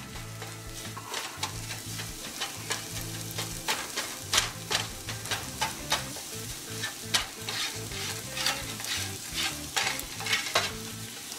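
Scrambled eggs sizzling in hot bacon grease in a nonstick skillet, with a spatula scraping and pushing them around the pan in many quick, irregular strokes.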